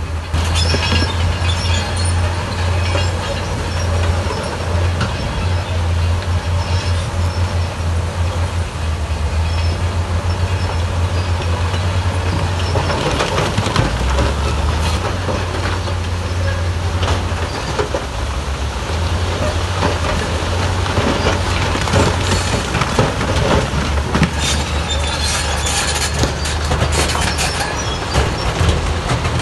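Diesel engines of a Komatsu bulldozer and a dump truck running steadily with a deep hum, while rock and stone clatter and tumble as the truck tips its load and the dozer pushes the pile. The clattering grows busier in the second half.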